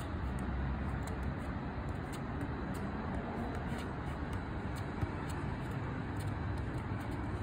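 Steady low rumble of city traffic, with scattered faint light ticks.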